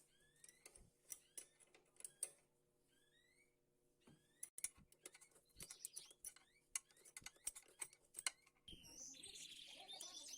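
Faint, irregular small clicks and taps, with a bird chirping in the background in short rising notes; near the end the birdsong thickens into a busier chatter.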